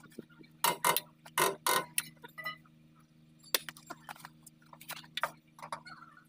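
Irregular light metal taps and clinks, about a dozen spread unevenly, as a new kingpin bushing is tapped and fitted into a truck's steering knuckle. A faint steady low hum runs behind.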